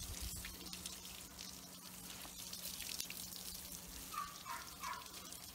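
Water from a hose spraying and dripping onto a wet dog and the floor: a steady hiss with many small splashes. Near the end, three short high squeaks.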